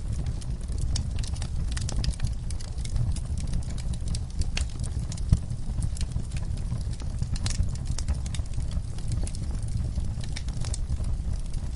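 Fire in a fireplace crackling: irregular sharp pops and snaps over a steady low rumble, with one louder pop about five seconds in.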